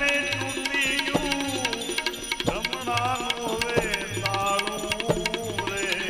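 Devotional bhajan accompaniment: tabla playing a steady rhythm, with deep bass strokes about once a second, under a gliding melodic line.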